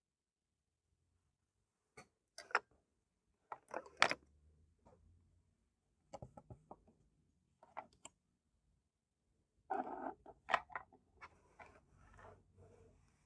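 Handling noises from a spiral sketchbook being turned and slid across a cutting mat: scattered light taps and knocks, with a louder rustling scrape about ten seconds in.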